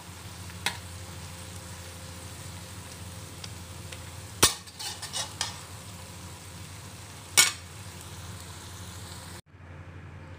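Lotus root and pork stir-fry sizzling in a metal wok over a steady low hum, as a metal spatula stirs it and clinks against the wok a few times; the dish is cooked through. The sizzle cuts off suddenly near the end.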